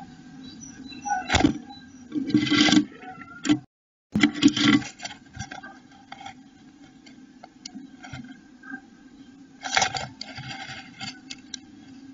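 Blue tit rustling and scratching in moss and animal hair inside a wooden nest box as it shapes the nest cup, in several bursts over a steady low hum. The sound drops out briefly about four seconds in.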